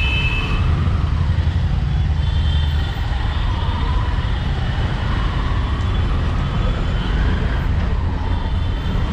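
Auto-rickshaw engine running as it drives through street traffic, heard from inside the open cabin as a steady low rumble.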